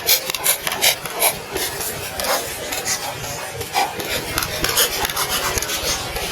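Rapid, irregular scratching and rubbing, a run of short rasping strokes.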